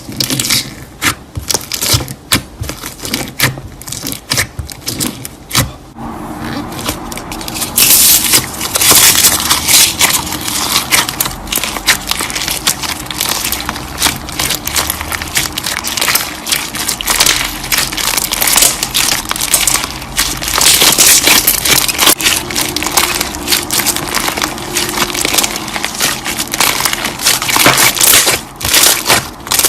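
Slime being kneaded and squeezed by hand: a dense, irregular run of sticky clicks, pops and crackles, growing busier and louder about eight seconds in.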